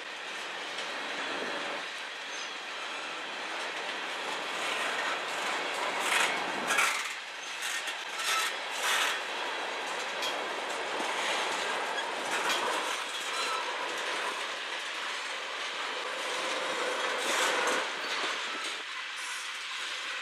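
Freight train tank cars and flatcars rolling past at close range: a steady rumble and clatter of steel wheels on the rails, with several short, louder metallic bursts about six to nine seconds in and again near the end.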